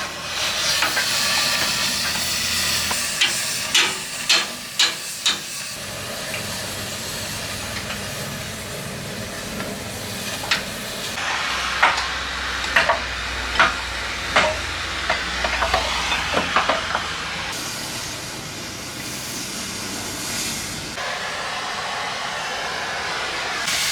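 Cutting torch flame hissing steadily on metal, with sharp clicks in two clusters, a handful a few seconds in and a dozen or so in the middle.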